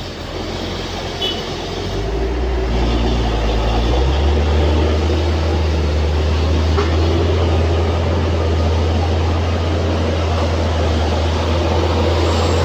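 Heavy vehicle's engine labouring up a steep climb. A deep, steady drone steps up in pitch and grows louder over the first four seconds, then holds steady.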